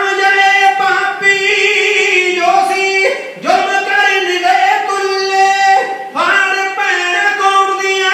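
A man singing into a microphone without instruments, holding long, high, steady notes in phrases, with short breaks between phrases about three and six seconds in.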